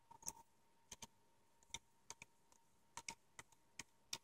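About a dozen faint, uneven clicks as a screwdriver turns out the small screw holding the cooling fan inside an HP Compaq nc6400 laptop.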